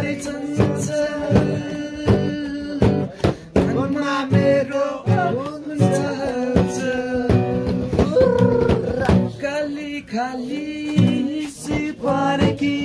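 A song sung to strummed guitar, with a melody over steady strokes and held notes.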